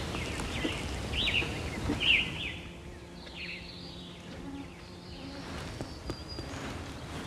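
Flying insects buzzing in a faint, steady hum, with a few short bird chirps in the first two seconds or so.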